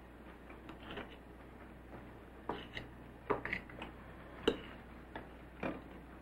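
Metal forks clinking on china plates: several light, separate clinks, the loudest in the middle, over a faint steady hum.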